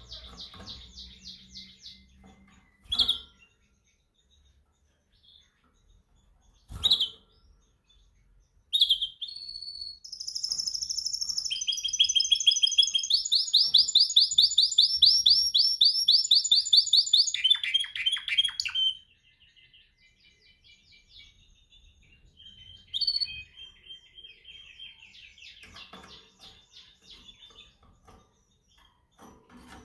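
Domestic canary singing: fast high trills and a few short sharp notes, swelling about a third of the way in into a long, loud run of rapid trilled rolls, then dropping back to softer trills.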